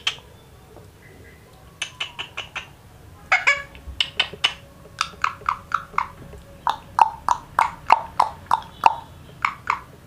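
Rose-ringed parakeet making a run of short, sharp clicking chirps, starting about two seconds in and going on at about two to three a second.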